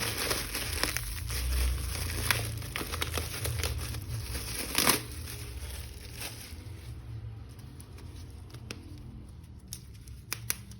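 Plastic packaging crinkling and tearing as an action figure is unboxed, with irregular crackles and clicks and one sharp snap about five seconds in. The handling grows sparser near the end.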